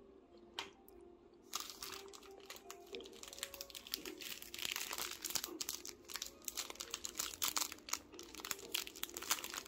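The plastic wrapping of a rice cake crinkling and crackling as it is handled and opened. The crinkling starts about a second and a half in and keeps going.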